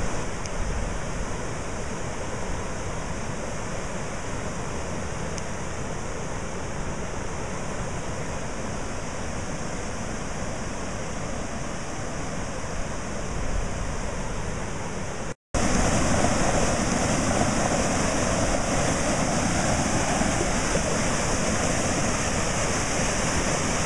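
Floodwater rushing through a swollen creek, a steady noise of fast-moving water. About fifteen seconds in the sound cuts out for an instant and comes back louder.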